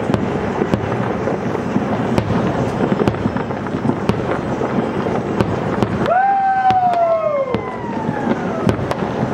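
Fireworks display: a dense crackle of aerial shells bursting, laced with sharp cracks and pops. About six seconds in, a drawn-out tone sliding down in pitch rises above the crackle for about a second and a half.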